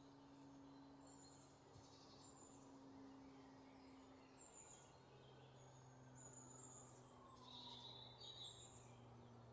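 Near silence: a faint steady low hum with scattered faint high chirps.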